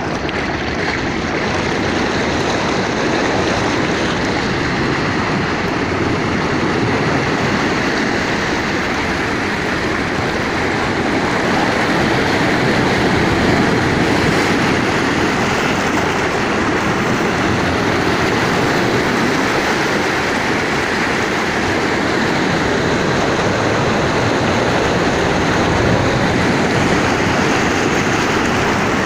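Sea surf washing ashore at the incoming tide: a continuous rushing noise at a nearly even level, with no single breaker standing out.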